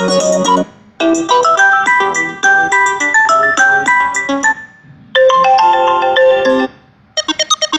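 imo app ringtone previews played one after another: short melodic electronic tunes, each cut off abruptly after one to a few seconds and followed by the next, about four in turn, the last a bright marimba-like tune.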